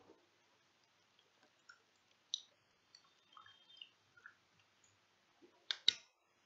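Faint, scattered clicks and small taps, with a brief high squeak in the middle and a sharper double click near the end.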